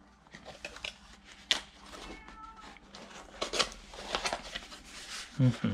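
Cardboard box flaps being opened and handled: a string of rustles, scrapes and crackles of stiff cardboard.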